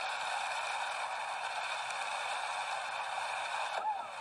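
A steady hiss of noise with no low end. It starts abruptly and cuts off shortly before the end.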